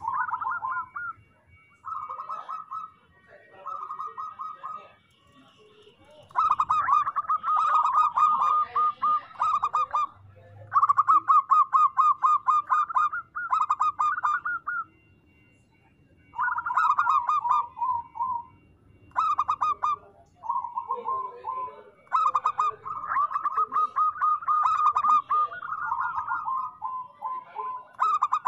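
Zebra dove (perkutut) cooing: runs of rapid, evenly repeated short notes. Three short phrases come first, then longer runs of two to four seconds with brief pauses between them.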